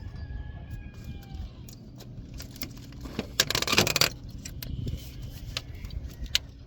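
Light metallic clinks and rattles from tools and parts being handled, with a louder burst of clattering about three and a half seconds in.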